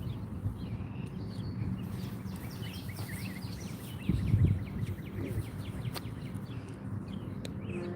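Small birds chirping, with a quick run of ticks partway through, over a steady low rumble.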